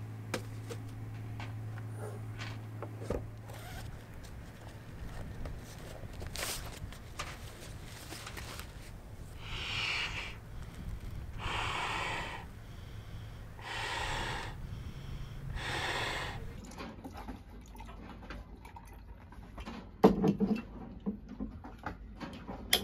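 A person blowing air by mouth into the valve of an inflatable pool float: four long breaths, about two seconds apart. After them, a few sharp knocks and clicks, the loudest sounds here.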